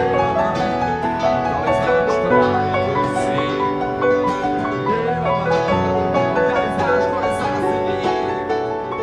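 Instrumental music led by piano or keyboard: a melody of held notes over sustained chords.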